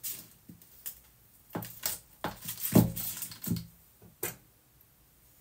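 A knife cutting through a block of butter on its wrapper on a kitchen worktop, heard as scattered taps and knocks with wrapper rustle. The loudest knock comes near the middle, and there is a sharp click about four seconds in.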